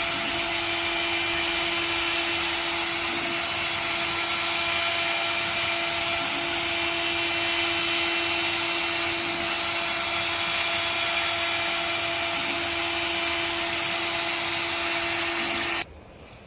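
An electric machine motor running steadily with a whirring hum and a few steady whining tones. It shuts off abruptly near the end.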